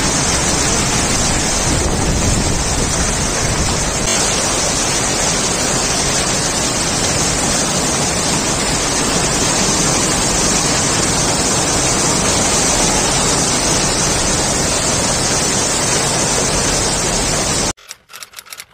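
Heavy rain pouring down: a loud, steady rush of rain noise that cuts off suddenly near the end.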